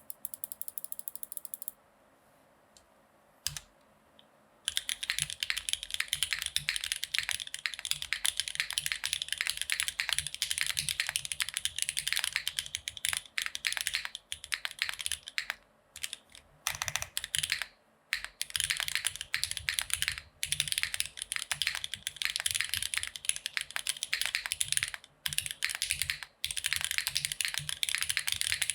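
Fast, steady typing on a custom mechanical keyboard with lubed and filmed Gateron X R1 switches in an O-ring-mounted aluminium plate, under GMK keycaps. There is a short run of even clicks at the start and a single click, then dense keystrokes begin about five seconds in, with brief pauses between bursts.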